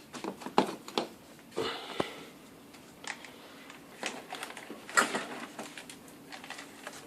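Scattered light clicks and knocks from a VHS camcorder being handled, with a brief rustle about one and a half seconds in and the loudest knock about five seconds in.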